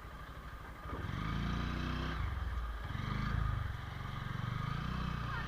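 Honda Hornet 2.0 motorcycle's single-cylinder engine running, its note growing stronger about a second in and then rising and falling with the throttle. The timing chain and its adjuster have just been replaced.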